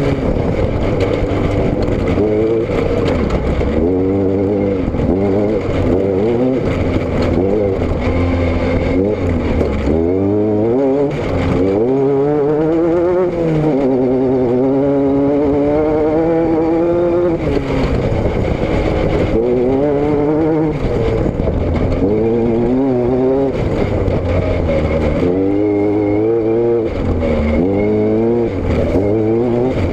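Car engine driven hard, its pitch climbing under acceleration and dropping back again every few seconds, over and over.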